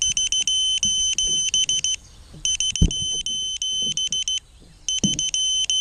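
Electronic beeper giving a high steady tone broken into quick beeps, in runs about two seconds long with short pauses between, and a single knock a little before halfway.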